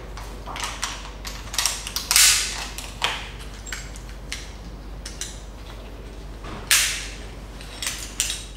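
Clicks and clatter of metal climbing hardware, carabiners and a rope descender, with the rope rubbing and creaking through the descender in short pulls as the climber lowers himself until the middle lanyard takes his weight. The two loudest swishes come about two seconds in and again near seven seconds.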